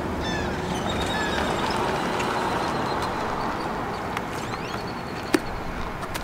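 Road traffic passing, a steady rush that swells over the first few seconds and then eases, with short high chirps above it and a single sharp click about five seconds in.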